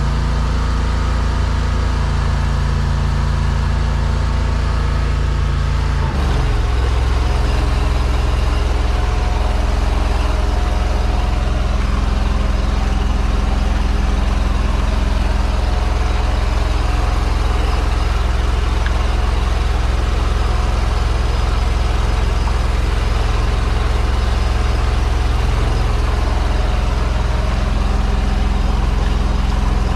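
High-pressure sewer jetter running steadily while blasting a blocked drain line. About six seconds in, its engine note drops and settles lower and heavier.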